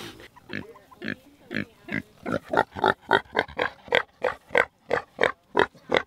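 Pig grunting close to the microphone: a run of short grunts that quicken from about two a second to three or four a second.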